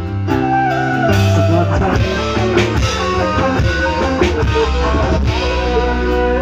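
Live combo band playing a song: a melodic guitar line over held bass notes and a drum kit.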